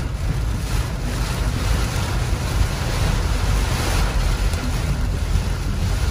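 Thunderstorm rain and wind beating on a car, heard from inside through a dashcam: a steady noise with a heavy low rumble.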